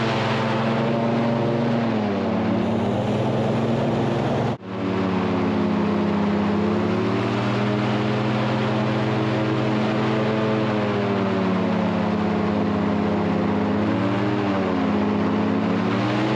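Airboat engine and propeller running steadily under way, with a strong drone and rushing air. The engine speed sags and picks up again about two seconds in and once more near the end, as the throttle is eased and reopened. The sound breaks off for an instant about four and a half seconds in.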